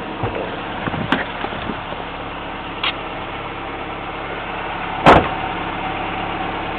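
Toyota Tercel's four-cylinder engine idling steadily. A few light clicks come about a second in and near three seconds, and a single sharp knock, the loudest sound, about five seconds in.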